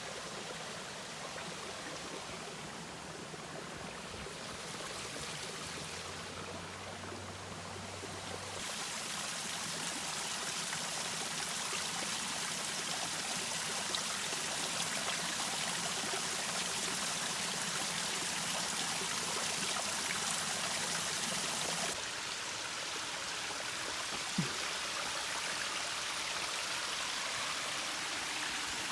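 Small waterfall: water running over rock, a steady rushing that gets louder about a third of the way in and drops back a little later on.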